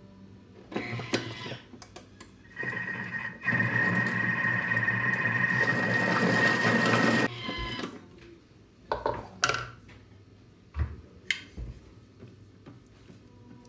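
Thermomix food processor running its chop setting at speed 5: the blades spin up and whirr through vegetables with a steady high whine for a few seconds, then stop suddenly. A few clicks and knocks come before and after it.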